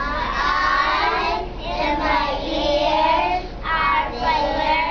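A children's choir singing, in sustained phrases with short breaks between them.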